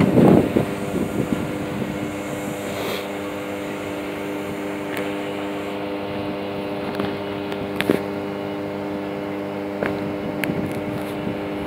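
Hyundai Rotem HRCS2 electric train giving off a steady multi-tone electrical hum, with a few sharp clicks along the way. A brief louder rustle comes at the very start.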